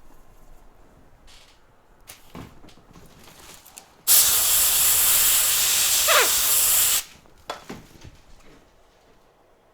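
A spray can hissing in one steady burst of about three seconds, cleaning a solder stencil, with a brief falling tone near its end. Faint brushing scrapes and light taps come before it.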